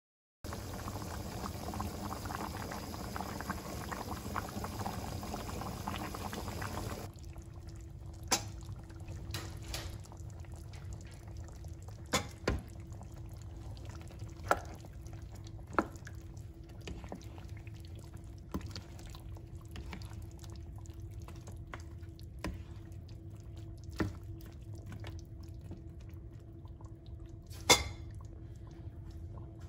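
Chicken curry bubbling at a simmer under a glass pan lid, a dense steady hiss of boiling liquid for the first several seconds. It then gives way to a quieter stretch with a faint steady hum and scattered sharp knocks of a spatula against the pan as the curry is stirred.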